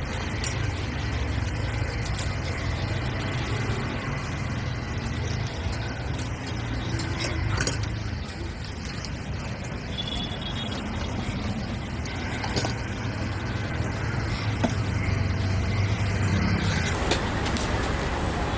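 Street traffic noise: a steady low engine rumble from passing and idling vehicles, with scattered short clicks and rustles from plastic sheets and foil containers being handled.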